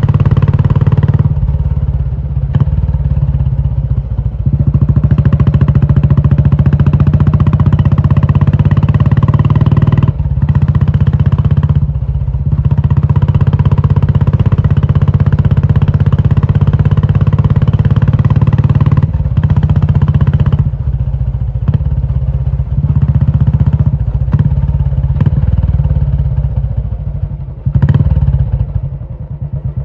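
Royal Enfield Classic 350's single-cylinder engine running through a loud aftermarket Indore exhaust, the throttle opened and closed several times with short dips in between. Near the end it drops back to a slow, even thump.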